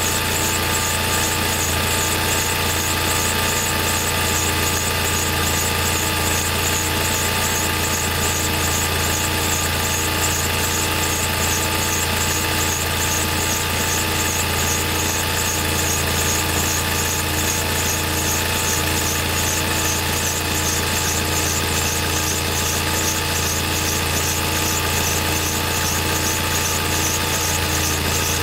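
Volkswagen Golf 5 GTI engine running steadily with an abnormal squeal and a rapidly pulsing high hiss over a constant low hum. This is the noise of a failed pressure relief valve.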